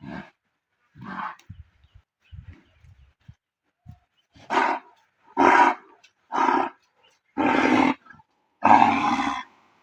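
A bull giving a series of loud, hoarse calls, about seven in all: two short fainter ones near the start, then five louder, longer ones in the second half, the last the longest. The bull is in distress, which the uploader puts down to a venomous snake.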